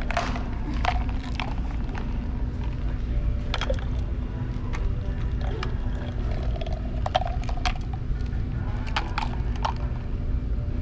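Light clicks and knocks of plastic cups and sippy-cup lids being handled while soda is poured into sippy cups, scattered irregularly over a steady low hum of room background.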